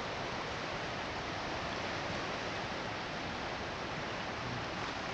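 River current rushing steadily over rocks, a constant even wash of water.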